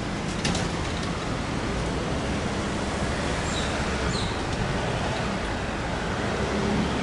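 Steady city street traffic noise from cars, with a few short high chirps about three and a half to four seconds in.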